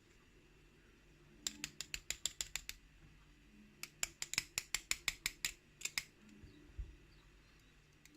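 Two quick runs of light clicks, about eight a second, as a gutted padlock is worked to free the spring from its fourth pin chamber.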